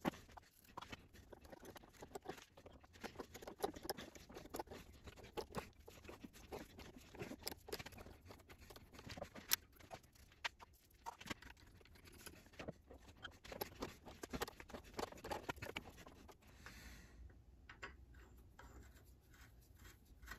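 A hand-turned 3/8 tap in a T-handle tap wrench cutting threads into a metal part held in a lathe chuck: faint, irregular clicks and scraping. The sounds thin out for the last few seconds.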